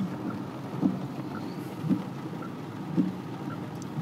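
Steady rushing of heavy rain and flood water around a vehicle, with a short low note repeating about once a second.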